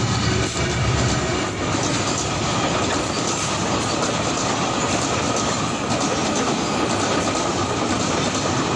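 Diesel freight train passing close by, wheels clattering and rumbling steadily over the rails under loaded container wagons, with a faint constant ring above the noise. The locomotive's engine adds a deeper rumble in the first second or so as it goes past.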